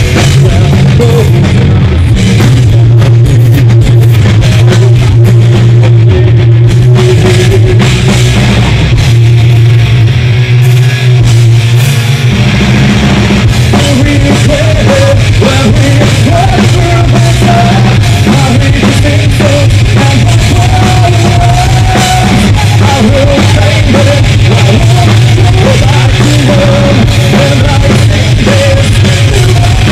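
Rock band playing live and loud: electric guitars, bass and drum kit, with a held melodic line over the band from about halfway through.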